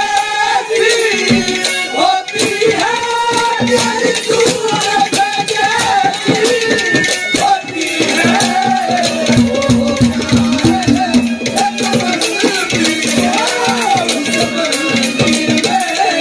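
Live Haryanvi ragni folk music: a wavering melody over brisk dholak drumming and a rattling percussion, with a steady held low note through the second half.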